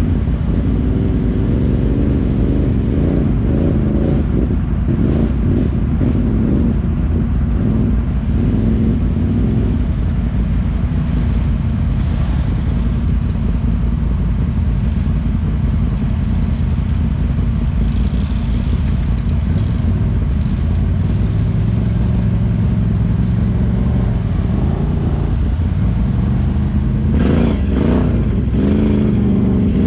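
ATV engine running under way, its revs rising and falling as it is ridden, with a burst of revving near the end.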